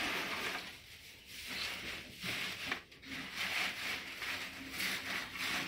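Dry straw crackling and rustling as it is pressed and shaped by hand into a nest in a plastic crate, in irregular patches.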